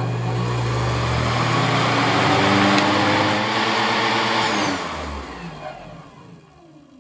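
Treadmill DC motor with its flywheel running at speed. About four and a half seconds in it is switched to dynamic braking through a 1-ohm, 400-watt resistor bank and spins down, its pitch falling as it fades to a stop within about two seconds.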